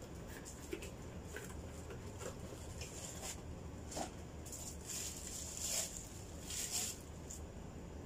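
Plastic packaging rustling and crinkling as an item is unwrapped and handled, with a few light clicks and knocks; the rustling is loudest in the second half.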